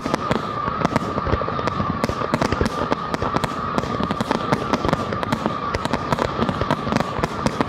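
Fireworks display: a dense, rapid barrage of aerial shell bursts and crackles, several bangs a second, over a steady whistling tone.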